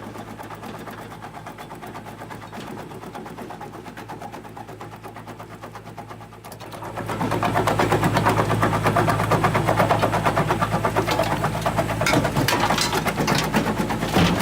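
Komplet LT4825 compact jaw crusher running with a steady hum. About seven seconds in, it grows much louder with a dense, rapid clatter as broken concrete slab is crushed in the jaws.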